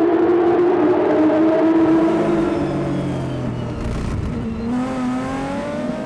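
Formula Renault 3.5 single-seaters' 3.5-litre V6 engines at full throttle as the field accelerates off the starting grid, many engines wailing together. About two seconds in the pitch drops, and near the end a car's engine climbs in pitch as it revs up through the gears.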